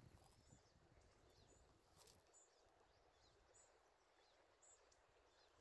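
Near silence: room tone, with faint high chirps repeating about once a second and a single faint click about two seconds in.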